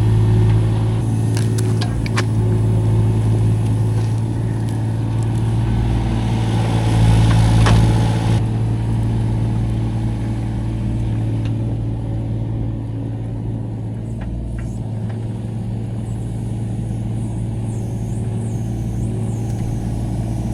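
A 25-horsepower mini excavator engine runs steadily while working its hydraulics, with a few sharp clicks and knocks. It gets louder with a hiss about six to eight seconds in, then the hiss cuts off suddenly.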